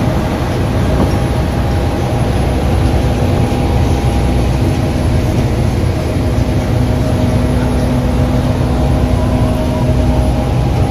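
Steady, loud low rumble of the car ferry's engines heard from the open vehicle deck, with a faint steady hum on top.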